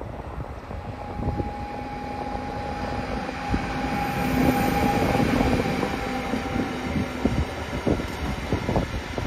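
A train passing. Its running noise swells to a peak about halfway through and then eases off, with a steady whine held for several seconds, over wind buffeting the microphone.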